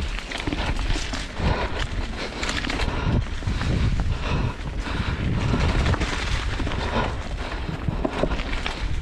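Mountain bike descending a rough dirt trail: tyres rolling and skidding over dirt and rocks, with frequent rattling and knocks from the bike over bumps, and wind rumbling on the microphone.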